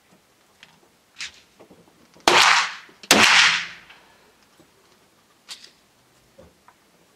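Large-calibre handgun shots on an outdoor range: two loud shots less than a second apart near the middle, each trailing off briefly, with fainter single shots before and after.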